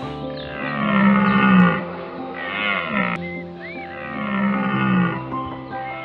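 Background music with a large animal's long, low calls over it, two of them, each sagging in pitch at its end.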